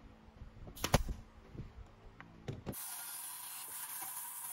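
Pneumatic brad nailer firing, one sharp loud shot about a second in with a few lighter clicks and knocks around it, as it drives nails through the slats into the frame. Near the end it gives way abruptly to a steady hum with a high hiss.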